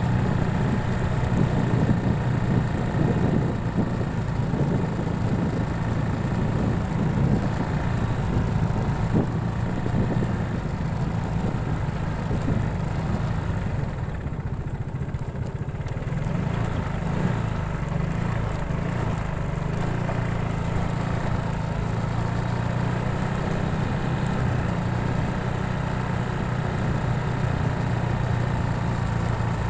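A vehicle's engine runs steadily while driving, its low hum shifting slightly in pitch with speed, over a hiss of road and wind noise. The hiss drops briefly about halfway through.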